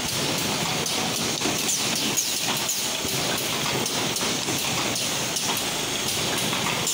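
Automated LED bulb assembly machines running: a rapid, irregular clicking and clatter of pneumatic heads and parts moving on the rotary table and conveyors, over a steady hiss.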